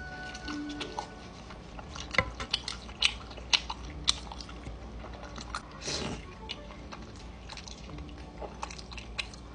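A person chewing and biting food, with a run of sharp clicks about two to four seconds in and a brief noisy swish around six seconds.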